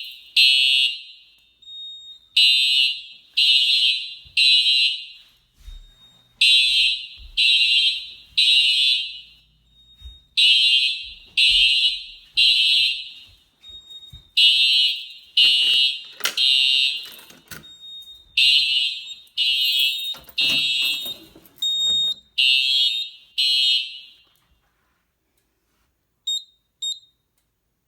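Home fire alarm horn sounding a high-pitched temporal-three evacuation pattern (three pulses, a pause, three more) after a manual pull station is pulled. It stops about 24 seconds in as the alarm is silenced, and a couple of short high beeps follow near the end.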